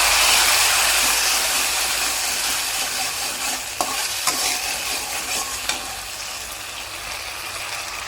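Tomato sauce and honey sizzling in hot oil in a pan just after being added, the sizzle slowly dying down. A few clicks of a spoon against the pan midway.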